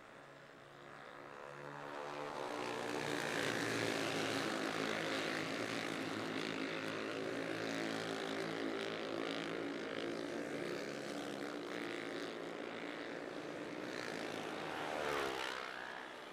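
A pack of Honda CB 300R single-cylinder racing motorcycles running hard at high revs, several engines droning together. One bike passes close near the end, its pitch dropping as it goes by.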